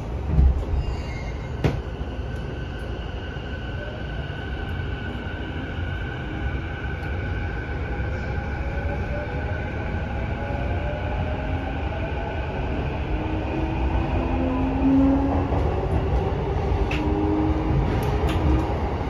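Interior running sound of a JR E233-7000 series electric train with a Mitsubishi IGBT VVVF inverter as it pulls away and accelerates. The inverter and traction-motor whine climbs in pitch in several rising tones over the rumble of wheels on rail, getting gradually louder. Two sharp thumps come in the first two seconds.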